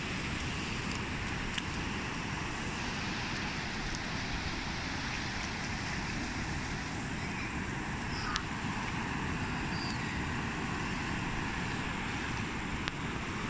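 Gentle surf washing onto a sandy beach, a steady hiss of small waves with wind buffeting the microphone as a low rumble. A few faint clicks.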